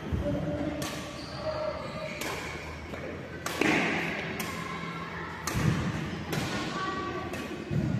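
Badminton play: about half a dozen sharp racket strikes on the shuttlecock, irregularly one to two seconds apart, with thuds of feet on the court and voices in the background.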